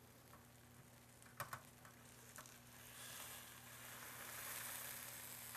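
Faint sizzling hiss from hot broiled mahi fillets on a broiling pan, swelling from about three seconds in. Before it come a few light clicks of a metal utensil against the pan, over a low steady hum.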